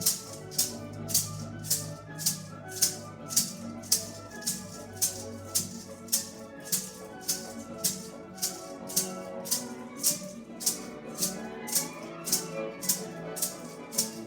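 Maraca shaken on a steady beat, about two shakes a second, over orchestral music.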